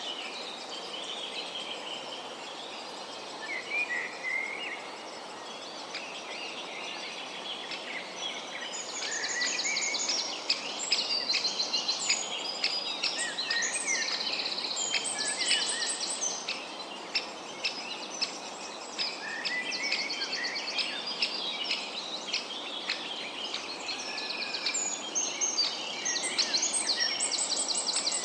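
Several birds calling and chirping, with quick runs of high repeated notes, over a steady outdoor background hiss.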